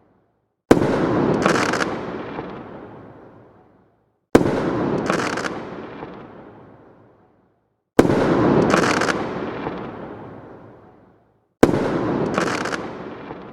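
A single firework bursting overhead with a sharp bang, then a sparkling crackle that fades away over about three seconds. The same burst repeats four times, about every three and a half seconds.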